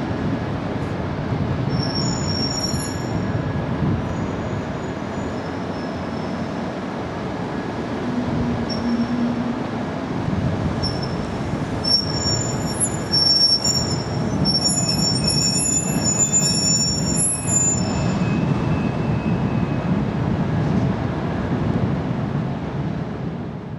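City street traffic rumble, with high-pitched squealing in several tones for about six seconds from around halfway through.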